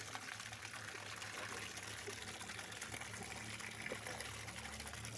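Tap water running steadily into a stainless steel basin while leafy greens are rinsed under it by hand.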